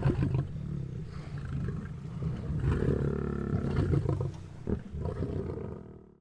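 African lions growling at a zebra kill as they feed, a low rough growl with a louder, higher snarl in the middle, fading out near the end.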